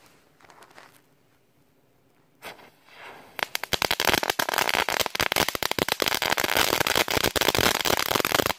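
A tapematch-linked cluster of twelve Meteorite crackling fireworks going off. About three and a half seconds in, a dense, fast crackle of many sharp pops starts and keeps up loudly to the end.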